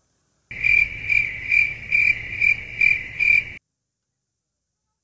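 Stock cricket-chirping sound effect: a loud, high, steady chirp pulsing seven times at about two a second, starting abruptly and cutting off cleanly, surrounded by dead silence. It is the classic 'crickets' gag edited in to mark an awkward silence.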